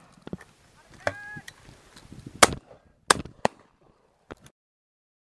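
Shotgun shots: two loud reports about two and a half and three seconds in, followed by two quieter ones, before the sound cuts off.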